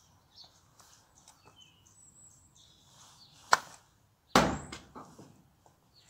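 A golf club chipping a ball off a driveway mat with a sharp click, followed under a second later by a louder thud as the ball strikes its target, with faint birdsong in the background.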